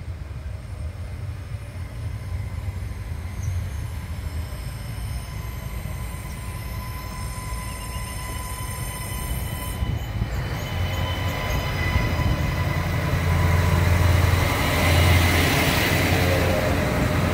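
Adelaide Metro 3100-class diesel railcar approaching and passing close by: a low engine and wheel rumble with a thin steady whine above it. It grows louder from about halfway through and is loudest in the last few seconds as the cars go past.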